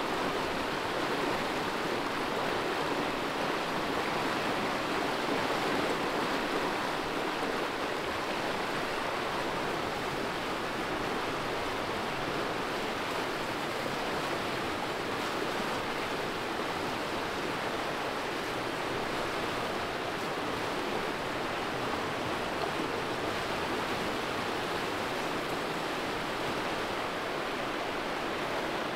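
River water rushing steadily, an even hiss of flowing water.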